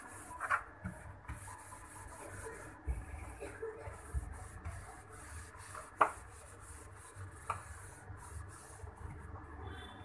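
Cloth rubbing and wiping over the plastic inner walls of a refrigerator in irregular strokes, with a few sharp clicks or knocks; the loudest comes about six seconds in.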